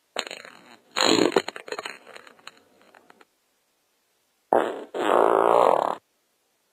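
Two bouts of farting. The first is a short fart followed by a louder, sputtering one that trails off over about two seconds. After a pause comes a brief fart and then a steady, buzzing fart about a second long.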